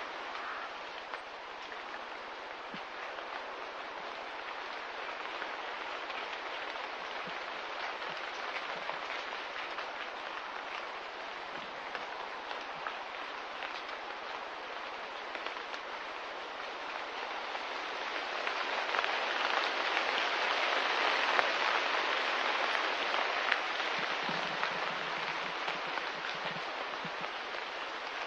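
Steady rain-like hiss with a fine patter, swelling louder about two-thirds of the way through.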